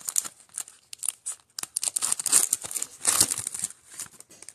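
Shiny foil trading-card pack wrapper being torn open and crinkled in the hands, a run of crackles with louder bursts about two and three seconds in.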